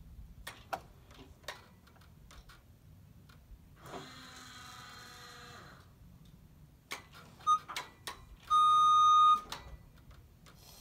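JLG scissor lift working: scattered clicks and knocks, a steady whir of about two seconds near the middle, then a single loud electronic beep lasting about a second near the end.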